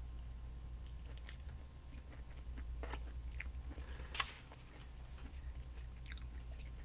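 A person chewing a bite of buffalo chicken flatbread: faint mouth clicks and small crunches, with one sharper click about four seconds in, over a steady low hum.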